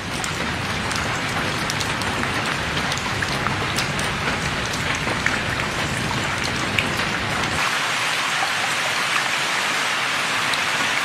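Steady rain falling on tiled roofs, a dense patter of many small drops. A low rumble underneath drops away about two thirds of the way through.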